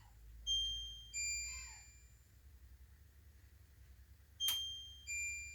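Control panel of a Pressure King Pro electric pressure cooker beeping as its buttons are pressed: two pairs of short electronic beeps, each a higher note then a lower one, one pair near the start and another about four and a half seconds in, the second pair led by a click.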